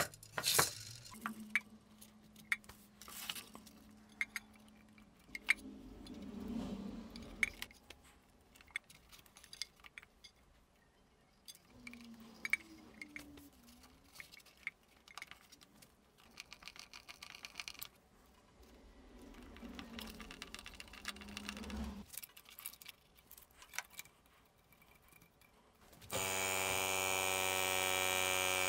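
Scattered clicks and knocks of hands fitting clear plastic tubing and metal fittings onto a small airbrush compressor and its homemade tank. Near the end the compressor's electric piston motor starts and runs with a steady buzzing hum, pumping air into the tank.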